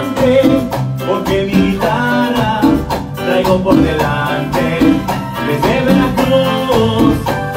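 Live Latin band music: a man singing into a microphone over electronic keyboard, hand drums and drum kit, with a steady beat.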